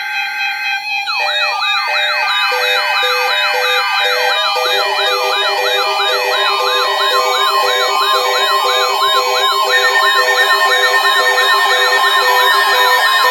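Layered electronic alert tones: steady tones joined about a second in by several warbling siren sweeps, about three a second, plus pulsing beeps. The stack grows slightly louder and denser.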